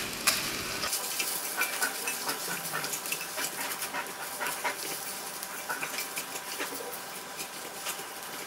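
Rice vermicelli and bean sprouts sizzling in a hot nonstick wok while a spatula tosses them, with a steady hiss and frequent light taps and scrapes of the spatula against the pan.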